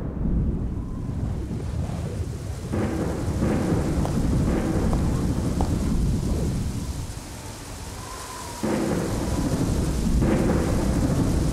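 Heavy rain falling with low rumbles of thunder. The downpour eases for a moment and comes back suddenly about three quarters of the way through.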